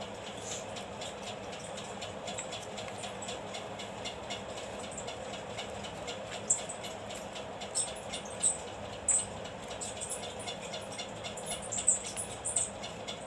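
Fingers handling, folding and pressing corrugated cardboard pieces: soft scratchy rustling with several sharper crinkles and clicks in the second half, over a steady background noise.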